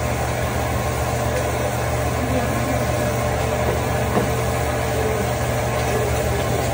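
Meat sizzling on a hibachi steel griddle over a steady low hum, with a couple of faint clicks of the chef's spatula.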